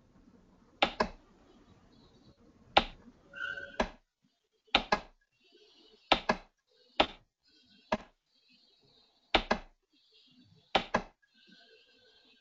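Computer mouse clicking as menus are opened and items chosen: sharp single clicks and quick double clicks, about one every second or so.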